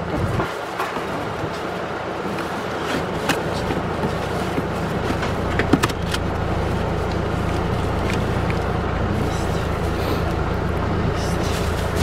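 Things being packed into a car boot: a few short knocks and clicks over a steady outdoor noise, with a low rumble that sets in a few seconds in and holds.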